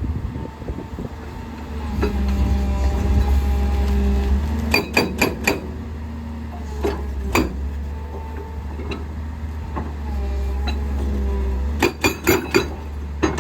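Excavator with a hydraulic rock breaker working rock: the diesel engine drones steadily under load. Clusters of sharp metallic clanks come about five seconds in and again near the end, with a single clank in between.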